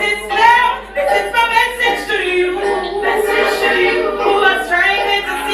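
High-pitched young voices singing over music.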